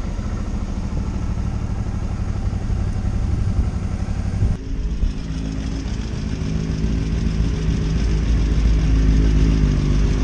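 Motorcycle engines. First the camera rider's own bike runs while riding. After a sudden change about halfway, other motorcycles idle close by as they pull up, with steady low engine tones.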